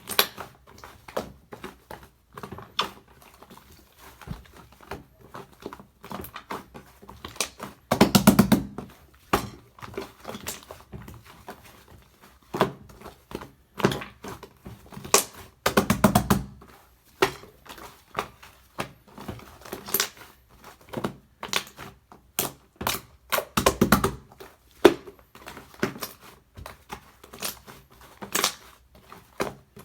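Slime being pressed, poked and pulled by hand: a running string of small sticky clicks and pops, with three longer, louder squishes spaced about eight seconds apart.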